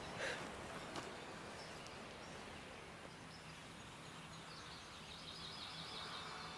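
Quiet outdoor ambience in pine woods, with a small bird trilling: a rapid run of high chirps about two-thirds of the way through.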